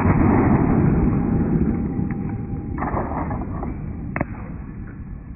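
8mm Mauser bolt-action rifle shot slowed down: a deep, drawn-out boom that fades slowly, with a single sharp crack about four seconds in.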